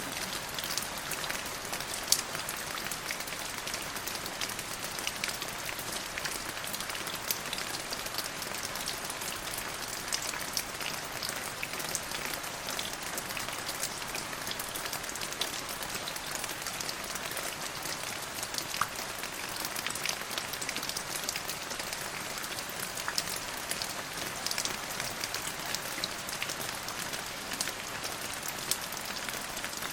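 Steady rain falling, with a dense patter of individual drops ticking over the even hiss.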